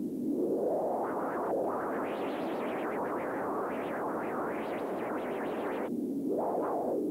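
Electronic synthesizer score of swept, filtered noise: a whooshing hiss that swells and sweeps up and down in pitch in repeated surges, with echo. It breaks off about six seconds in, then gives one more short swell.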